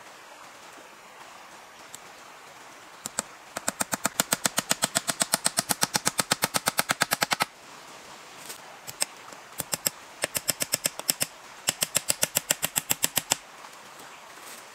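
A rapid series of sharp knocks, about nine a second, in three runs: a long one of about four seconds, then two shorter ones.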